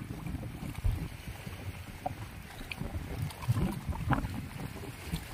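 Gusty wind rumbling on the microphone over choppy open sea, with water lapping and a few faint clicks.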